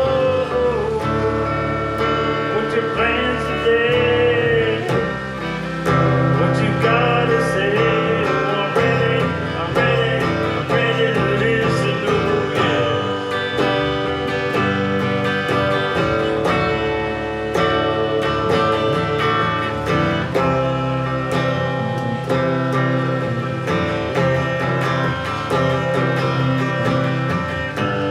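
Live guitar music: a country-style instrumental passage of picked and strummed notes, with some wavering held notes.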